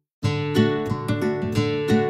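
Background music of plucked guitar notes, starting just after a brief gap of silence.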